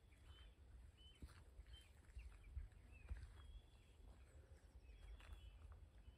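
Faint, short calls of willow warblers, a scatter of brief high notes, some rising slightly, every second or so, over a low rumble of wind on the microphone.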